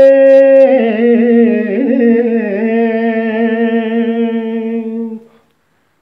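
A singer's voice holding a long wordless note at the end of a devotional sung recitation. About a second in it wavers in a short ornament, then settles on a slightly lower held note that cuts off abruptly about five seconds in.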